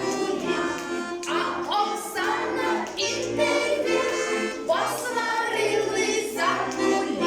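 A Ukrainian children's folk song sung in phrases over instrumental accompaniment.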